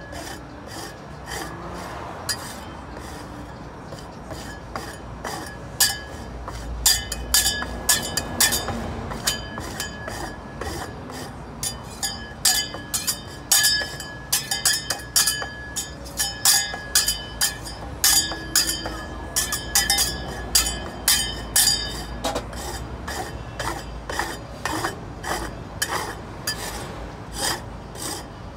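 Two metal spatulas chopping and scraping on the steel plate of a rolled ice cream griddle, working the ice cream base. It starts as scraping and becomes a rapid, uneven run of sharp ringing clinks about six seconds in.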